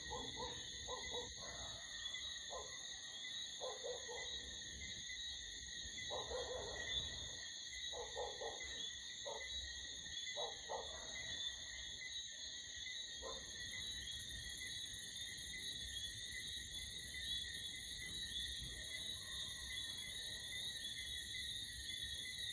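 Night-time outdoor sound-effect ambience: a steady, high-pitched chorus of night insects throughout, with a scattering of short animal calls during roughly the first half. The calls stop about 13 seconds in.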